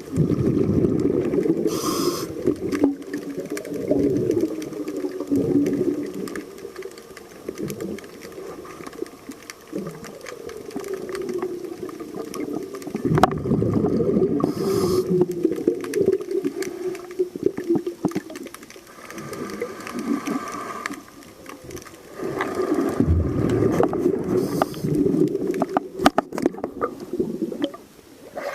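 Diver breathing through a regulator underwater: a short hiss on each inhale, about every ten seconds, then a long low rumble of exhaled bubbles.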